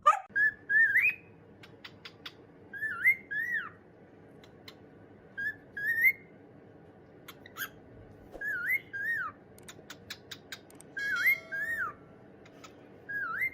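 Short, high whistles that sweep up and down sharply, mostly in pairs, repeating every two to three seconds over a faint steady hum.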